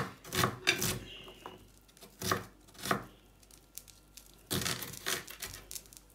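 Kitchen knife chopping a red onion on a wooden cutting board: a few separate cuts, then a quick run of cuts about four and a half seconds in.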